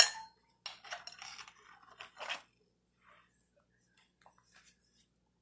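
Handheld phone being handled close to its microphone: a few short crackling, rubbing noises, stopping about two and a half seconds in.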